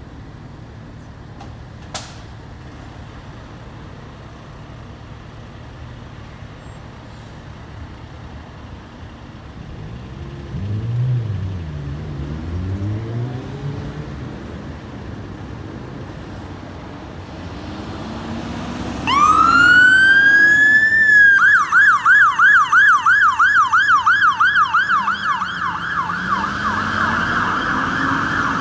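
London Fire Brigade Mercedes fire engine turning out. Its diesel engine runs low and rises and falls in revs about ten to fourteen seconds in. About nineteen seconds in its siren starts with a rising wail, then switches a couple of seconds later to a loud, fast yelp of about four sweeps a second.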